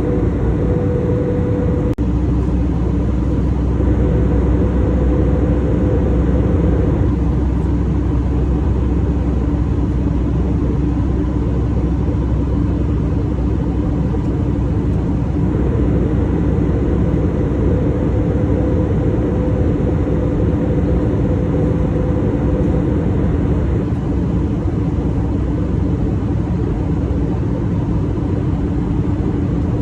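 Steady cabin noise inside an Airbus A319 airliner: the jet engines and airflow make an even, loud roar, with a few steady hum tones running through it.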